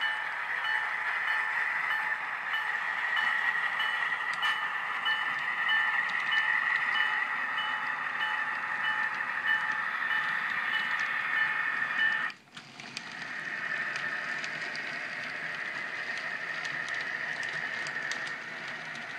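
Soundtraxx Tsunami sound decoder in an Atlas HO-scale ALCO C424 playing its diesel engine sound through the locomotive's small speaker as it runs, mixed with the model's wheels on the track. A faint high pulse repeats about twice a second through the first half, and the sound cuts out briefly about two-thirds of the way through before coming back.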